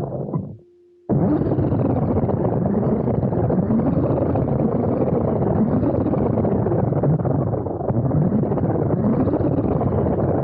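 Small RC car's motor and drivetrain running, with its wheels rolling across the floor, heard from a camera riding on the car. The sound cuts out for about half a second just under a second in, then carries on steady.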